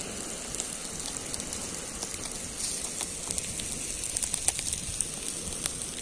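Whole grey mullet on a grill over an open fire, its fat sizzling with a steady hiss and scattered sharp crackles and pops, which come more often in the second half.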